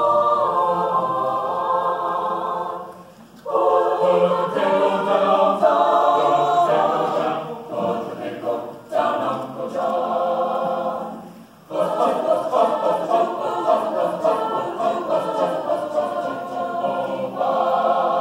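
Choir singing in several sustained phrases, with short breaks between them.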